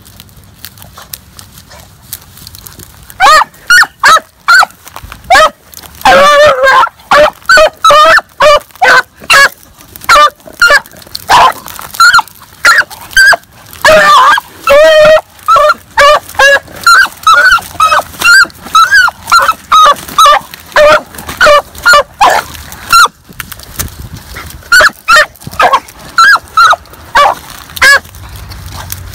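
A rabbit hound baying over and over, about one to two loud calls a second, starting about three seconds in with a short pause near the end: the dog giving tongue as it runs a rabbit's track.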